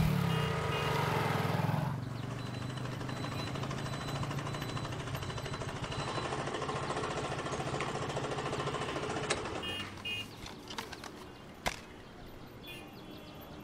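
Street traffic sound: motor scooters and motorcycles passing, with a steady engine hum and road noise, loudest in the first two seconds. A few sharp clicks sound near the end.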